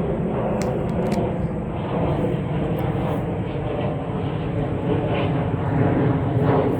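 A steady low engine rumble from distant traffic or aircraft, swelling slightly near the end.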